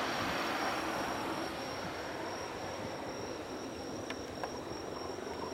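Distant jet engine noise of a departing Boeing 767-300 climbing away, a steady rushing sound that slowly fades. Under it is a constant high-pitched insect trill.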